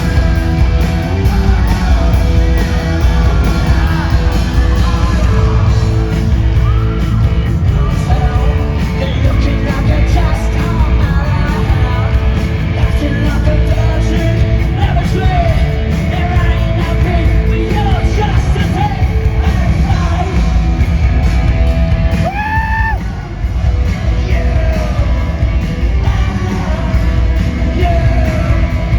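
Punk rock band playing live in a large hall: loud guitars, bass and drums, with a singer's yelled vocals over them.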